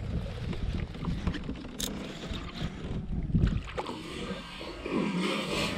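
Low wind rumble on the microphone over sloshing water, with a hooked bass splashing at the surface beside a kayak toward the end.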